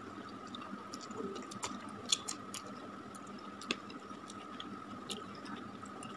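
Mouth sounds of eating fried instant noodles: slurping and chewing, with scattered sharp wet clicks and smacks, the loudest about two seconds and about three and a half seconds in. A fork works through the noodles on the plate near the end.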